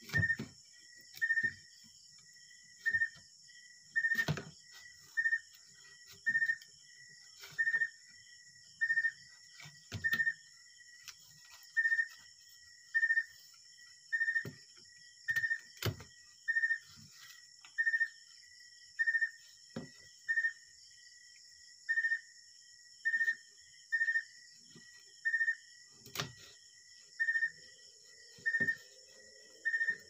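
An insect chirping in a steady, metronome-like rhythm, one short chirp about every second, over a continuous high hiss of insects. Now and then a sharp knock of a tool against the bamboo pole cuts in.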